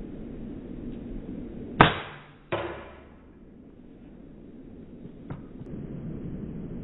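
Air rifle fired once, a sharp crack about two seconds in, followed under a second later by a second, weaker knock. A faint click near the end.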